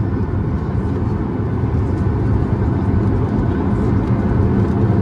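Steady drone and low rumble of a Boeing 737-800's CFM56-7B turbofan engines heard inside the cabin over the wing as the airliner taxis, growing slightly louder toward the end.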